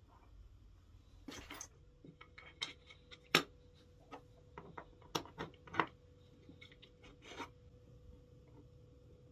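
Small wooden blocks, a wooden arm and a metal pin handled and fitted together on a plywood bench: a brief scrape about a second in, then scattered light clicks and knocks, the sharpest about three seconds in.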